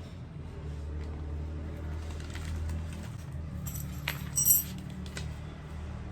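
A few light metallic clinks and clicks as metal cart parts and screws are handled, the loudest and most ringing about four and a half seconds in, over a low steady background rumble.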